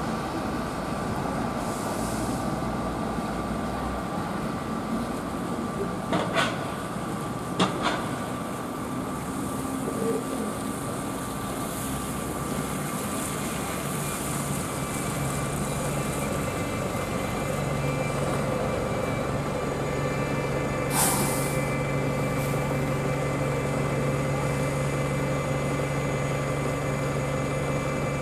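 Diesel buses running at a bus station: a steady engine hum, with a lower engine note growing stronger as a bus moves through later on. There are two short knocks around six and eight seconds in, and a short air-brake hiss a little after twenty seconds.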